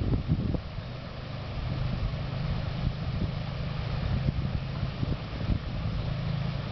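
Rain-swollen waterfall and runoff water rushing steadily, with wind buffeting the microphone in low thumps at the start and a steady low hum underneath from about a second in.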